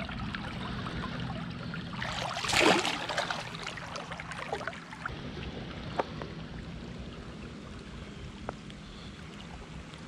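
Shallow creek water running steadily, with a brief splash about two and a half seconds in as a brown trout is let go in the water.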